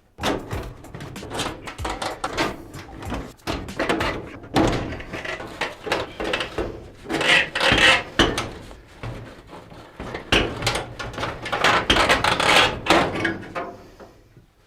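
Sheet-metal furnace flue pipe being handled and worked apart: a run of irregular clanks, knocks and scraping, with longer scraping stretches a little past the middle and again near the end.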